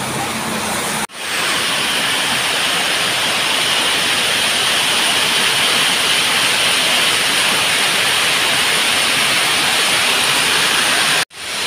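Heavy rain on a corrugated metal roof: a loud, steady hiss, cutting out briefly about a second in and again near the end.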